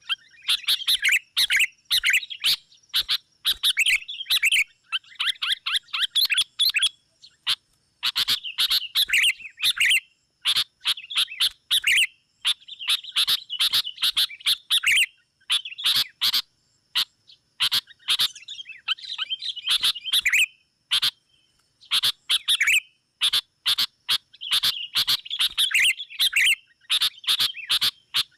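Sooty-headed bulbuls (kutilang) calling in fast, excited chattering phrases of a second or two, separated by short gaps and peppered with sharp clicks: a lure call meant to draw rival bulbuls in.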